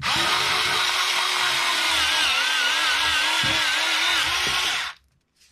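SakerPlus cordless electric scissors running as their blade cuts through thick cardboard, a steady motor whine with a rasping edge. About two seconds in the pitch drops a little and wavers as the blade works hard through the thick board. The motor stops suddenly near the end.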